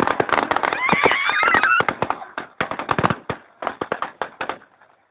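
Fireworks going off in a rapid string of sharp cracks and bangs, thinning out after about two and a half seconds and stopping shortly before the end.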